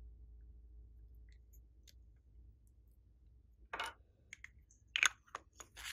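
Small plastic clay pot and its lid being handled: faint ticks at first, then a handful of sharp plastic clicks and taps in the second half, the loudest about five seconds in.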